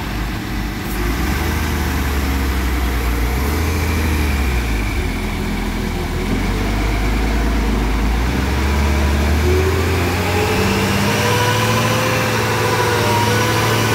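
Diesel engine of a MAN CLA 25.280 tipper truck running as the truck pulls away. About nine seconds in, the engine picks up speed, its pitch rising and then holding higher.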